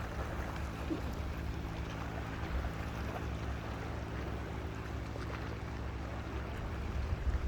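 A small boat's engine running steadily with a low hum, over a wash of water and wind noise.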